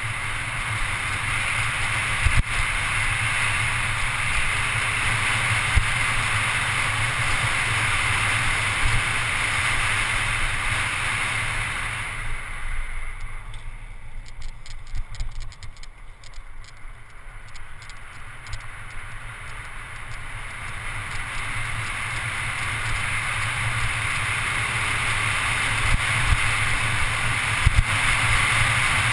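Wind rushing over a GoPro HD camera's microphone on a mountain bike descending a paved road at speed, with tyre noise and a few sharp thumps from bumps. The rush drops for several seconds about halfway through as the bike slows through a hairpin, where faint rapid ticks come through, then builds again as it picks up speed.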